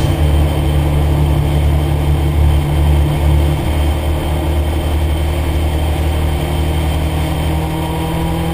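Kawasaki GPX 600 R's inline-four engine running steadily at cruise; its note drops slightly about three and a half seconds in.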